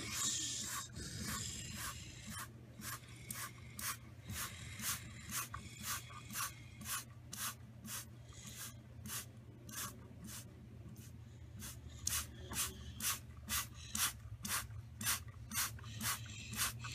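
Motorised mechanism of a toy-brick scale model car wash running: a small motor hums steadily under a regular rubbing scrape about twice a second, quickening slightly in the second half.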